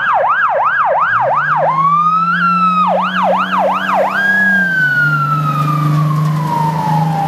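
Fire tanker truck's electronic siren: quick rising-and-falling yelp sweeps, a short held tone, more yelp, then from about halfway a long wail that slowly falls in pitch, over a low steady drone.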